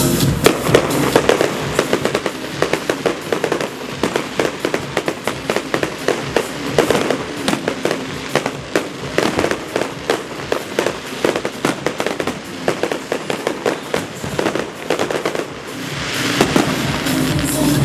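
Aerial fireworks going off in quick succession, a dense run of sharp bangs and crackles. Music comes back in near the end.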